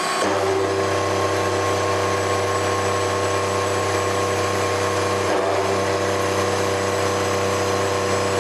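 Bridgeport-clone milling machine making a side cut with an end mill along a metal bar, fed as fast as its electric power feed will go; the fast feed is meant to keep the cut from chattering. A steady machine hum with several constant tones, briefly dipping about five seconds in.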